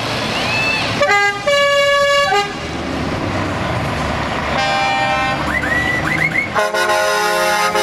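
Truck air horns sounding several long, multi-tone blasts, the first about a second in and another near the end, over the diesel engines of tractor units pulling away.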